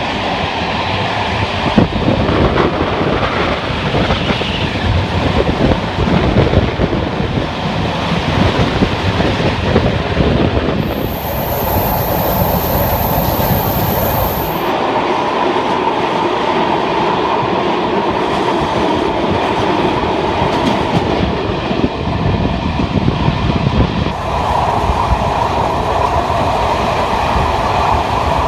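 Passenger train running along the track: a steady rumble with dense clickety-clack of the wheels over the rails. A thin, high-pitched tone sounds for a few seconds near the middle.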